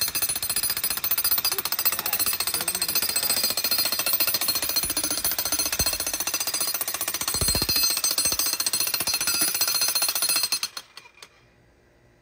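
Corded electric jackhammer hammering rapidly into a concrete footing, breaking it up. It stops near the end.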